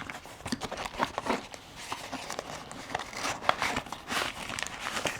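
Puzzle packaging being opened by hand: irregular crinkling and rustling with many small sharp clicks.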